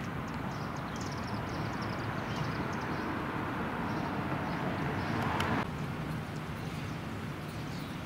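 Street traffic: a vehicle's tyre and engine noise builds and drops off sharply about five and a half seconds in, with birds chirping above it.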